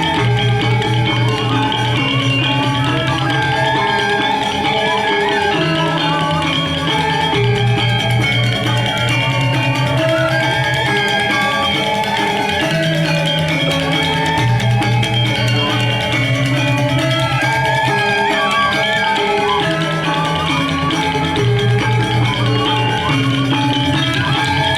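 Balinese gamelan ensemble playing dance music: layered, ringing metallophone notes over deep bass notes that change every few seconds.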